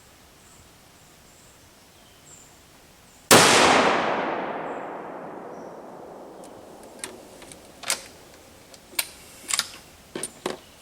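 A single rifle shot from a Winchester Model 70 in .270 Winchester, rolling away over about three seconds. Several short, sharp clicks follow in the later part.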